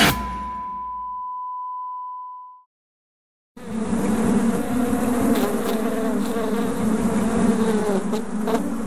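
A swarm of wasps buzzing, a dense wavering drone that starts suddenly a few seconds in after a moment of silence. Before it, a single steady high tone left over at the end of the song fades away.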